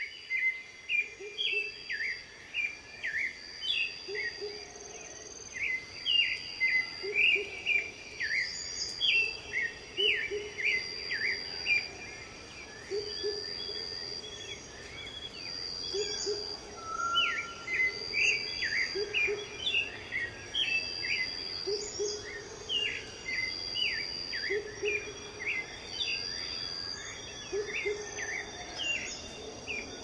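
Small songbirds chirping and twittering in quick runs of short notes, over a thin high note that repeats every second or two.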